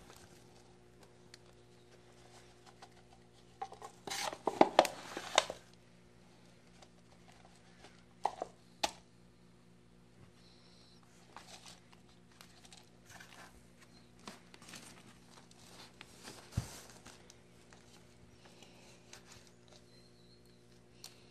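Potting soil scooped from a plastic bucket with a cup and poured into a plastic plant pot: a burst of scraping and rustling about four seconds in, then a few clicks and soft taps as the soil is added and firmed by hand. A faint steady hum runs underneath.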